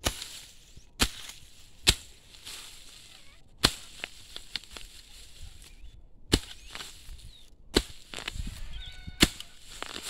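A steel hoe chopping into hard soil at the roots of a grass clump: about seven sharp, separate strikes at uneven intervals, working the deep-rooted grass loose.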